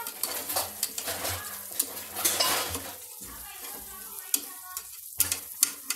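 A metal slotted spoon scraping and clinking against a pressure cooker as sliced onions are stirred and fried in oil, the oil sizzling. Sharp clinks come every so often, several of them near the end.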